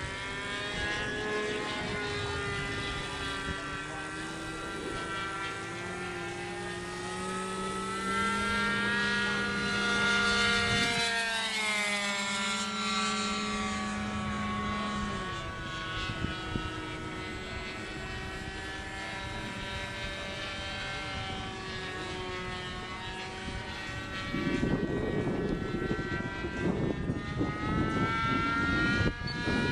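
NGH 9cc single-cylinder two-stroke gasoline engine of a radio-controlled model airplane, turning an 11x7 propeller, running in flight. Its note rises and falls in pitch as the plane turns and passes, with low buffeting on the microphone near the end.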